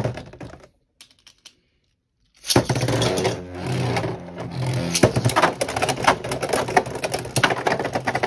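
A sharp click, then from about two and a half seconds in the steady whirr of Beyblade spinning tops in a plastic stadium, with rapid, irregular clacks as the tops strike each other and the stadium wall.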